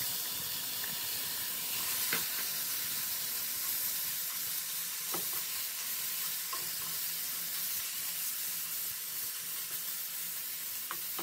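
Raw ground beef sizzling steadily in a skillet over medium-high heat while a wooden spoon breaks it up, with a few taps of the spoon against the pan.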